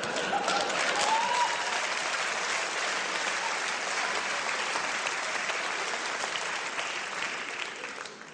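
Live audience applauding steadily, dying away near the end.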